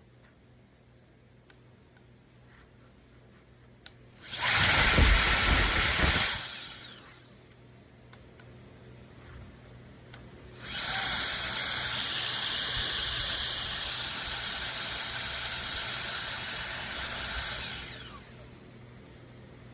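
Cordless electric air duster's high-speed motor whining in two bursts: a short one of about two seconds, then a longer one of about seven seconds. Each stops with the motor winding down.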